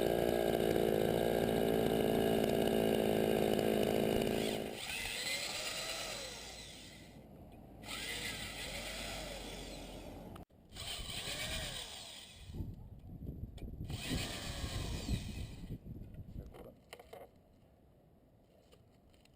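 Chainsaw engine of a chainsaw mill running steadily at high revs for the first four and a half seconds, then cutting off abruptly. It is followed by quieter scraping and handling noises that die away near the end.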